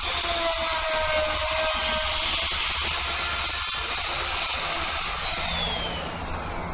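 Dongcheng electric plunge router running with a steady high whine while its bit cuts a groove along the back of an aluminium composite cladding panel. About five seconds in it is switched off and the whine falls in pitch as the motor winds down.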